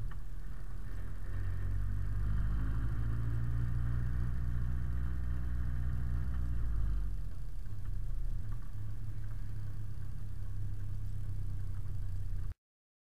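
Delivery truck's engine and road noise heard inside the cab as it drives, a steady low rumble with a clearer engine hum between about two and seven seconds in. The sound cuts off suddenly near the end.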